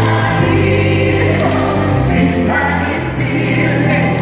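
Live duet of a male and a female lead singer backed by a gospel choir, over steady sustained instrumental backing.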